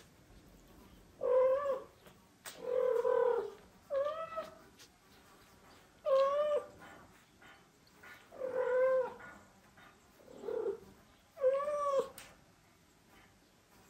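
Mother cat meowing to the father cat: about seven short, drawn calls a second or two apart, each bending up and down in pitch.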